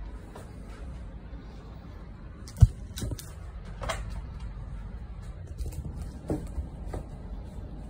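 A steady low hum with a sharp thump about two and a half seconds in, followed by a few lighter knocks and clicks.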